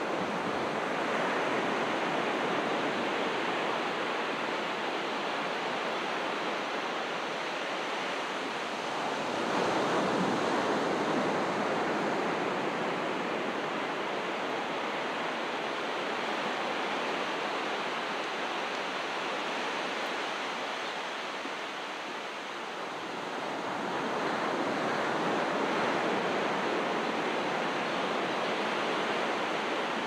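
Small ocean waves breaking and washing up a sandy beach in a steady surf, swelling louder about nine seconds in and again about twenty-four seconds in.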